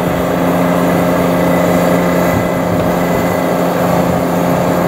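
Steady mechanical hum of running machinery: a constant low drone with a faint higher whine.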